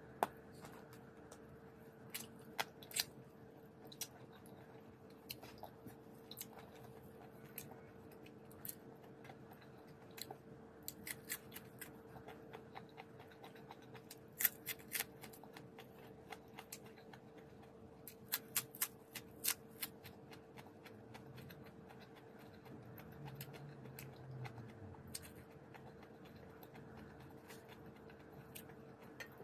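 Crisp bites and chewing of raw green vegetable stalks, heard close up as sharp, irregular crunches coming in clusters, over a steady faint hum.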